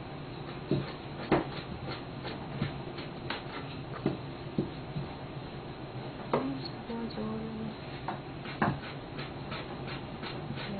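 A wooden rolling pin rolls out dough on a floured wooden board. Irregular knocks and taps of the pin on the board come over a steady low hum.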